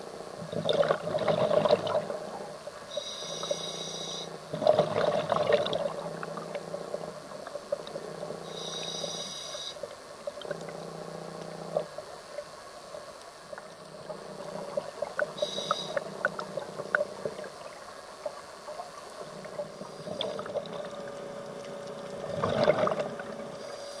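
Scuba diver breathing through a regulator underwater: short hissing inhalations, and three bubbly rushes of exhaled air, one about a second in, one about five seconds in and one near the end.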